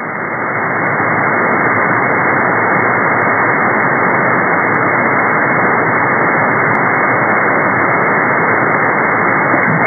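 Steady hiss of open-channel band noise from an SDRplay RSP1A receiver in lower sideband on the 11-meter CB band, with no station on the frequency. It swells up over the first second, then holds level.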